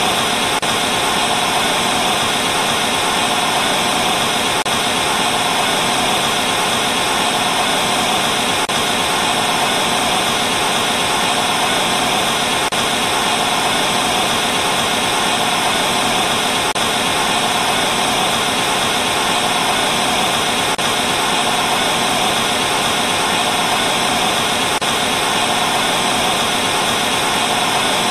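Steady TV static: the even hiss of an analogue television tuned to no signal, with a faint click about every four seconds.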